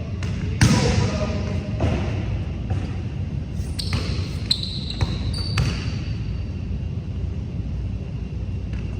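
Basketball being dribbled and bounced on a court, with several sharp thumps over a steady low background and a short high squeak near the middle.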